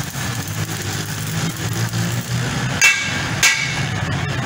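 Arc (stick) welding on a steel cement mixer: a steady low hum with crackling throughout. Near the middle come two sharp, ringing metal knocks about half a second apart.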